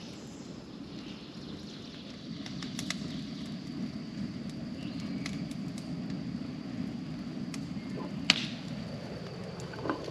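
Tractor engine running steadily while the first raindrops of a storm tick on its steel front loader bucket, in scattered sharp ticks, one louder than the rest near the end.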